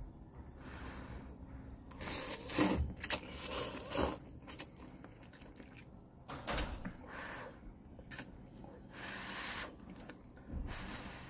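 Instant cup noodles being slurped and chewed, in several short noisy slurps with quieter chewing between.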